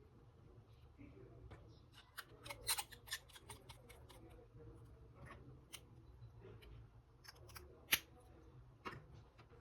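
Packaging being handled during an unboxing: a scatter of sharp clicks and crinkles, thickest about two to three seconds in, with a single loud click about eight seconds in.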